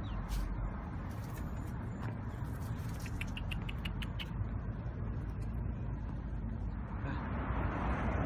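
Dry leaves and twigs crackling in short snaps and a quick run of ticks as someone pushes through leaf litter and brush, over a steady low rumble of road traffic that swells into a louder hiss near the end.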